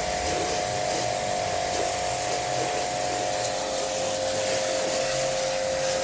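StarQ ST-25 2100-watt electric pressure washer running steadily. Its motor gives a constant whine under the loud hiss of the water jet as it rinses a motorbike with plain water.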